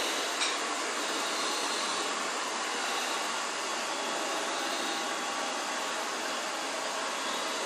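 Vacuum cleaner running steadily, with one short click about half a second in.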